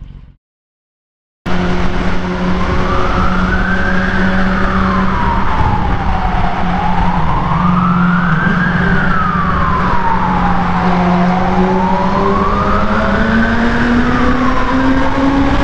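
Ambulance siren wailing, rising and falling slowly three times, over the steady drone of a Yamaha R6's inline-four engine, whose pitch climbs near the end as the bike speeds up. The sound starts after about a second of silence.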